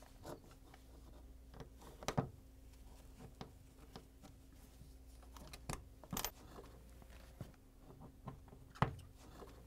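Torx screwdriver backing a screw out of a dishwasher's metal tank wall: faint scattered clicks and scrapes of the bit and screw, with a few sharper ticks about two seconds in, around the middle and near the end.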